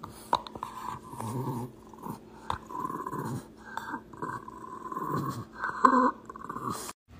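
French bulldog growling in play while tugging and chewing on a rubber ball, in several drawn-out stretches broken by short pauses, with a few sharp clicks; the loudest moment comes near the end.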